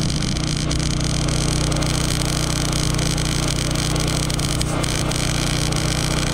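Wire-feed (MIG) welding arc on steel fence pipe, crackling and buzzing steadily as a continuous bead is run along the joint.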